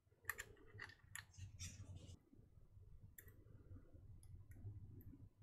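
Faint, scattered clicks and scratches of a small tool scraping between the metal leaves of a Commodore Datasette's play-sense leaf switch, clearing a build-up off the contacts.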